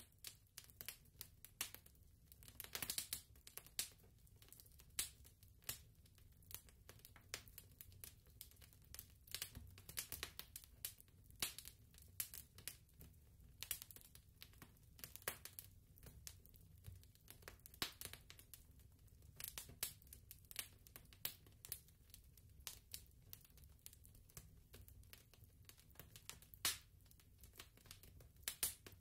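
Faint, irregular crackling and clicking, several sharp pops a second at uneven spacing, over a low steady hum.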